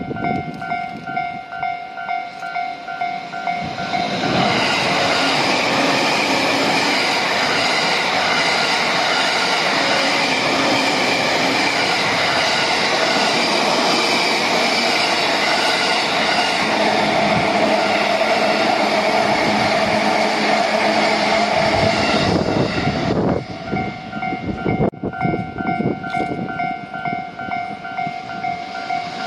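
Tokaido Line electric commuter train passing on nearby tracks. A steady, loud rush of wheel and running noise starts about four seconds in and falls away a few seconds before the end.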